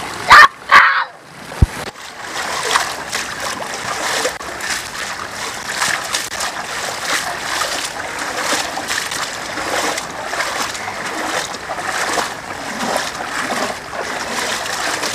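Splashing of feet wading through shallow floodwater, a steady wash of water sound broken by many irregular splashes. Two brief, very loud bursts of sound come in the first second, followed by a sharp click.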